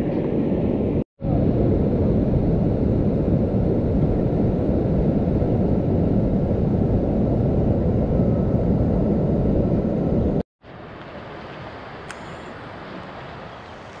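River whitewater rapids rushing loudly around an inflatable raft, cut off briefly about a second in. About ten seconds in the sound drops suddenly to the much quieter, steady flow of a calm stretch of river.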